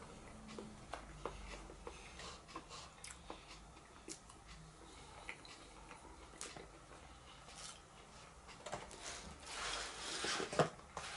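Eating sounds: a metal fork clicking and scraping against a cardboard takeaway box as vegetables are picked up, with close-up chewing. About ten seconds in comes a louder rustle with one sharp click.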